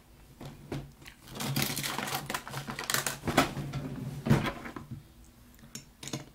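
Makeup brushes and other small items rummaged through and picked up close to the microphone: a dense run of taps, clicks and rustling for a few seconds that dies away near the end.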